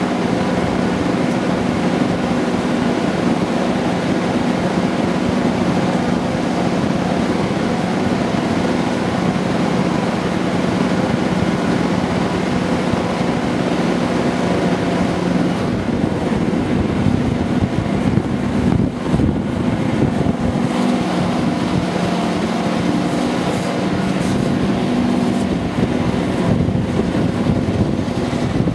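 Class 55 Deltic locomotive's two Napier Deltic two-stroke diesel engines running hard at full power, heard from onboard through Gasworks Tunnel. The sound thins out about halfway through as the train leaves the tunnel, with wind on the microphone after.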